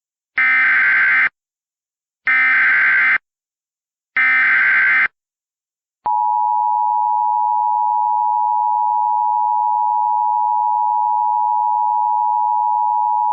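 Emergency Alert System SAME header: three short bursts of buzzy digital data tones, about a second each and a second apart. About six seconds in, the steady two-tone EAS attention signal starts and holds. Together they mark the start of an emergency alert broadcast.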